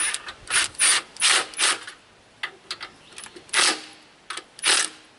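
Ratchet wrench clicking through about a dozen short back strokes in irregular runs as the exhaust mounting bracket bolts are tightened.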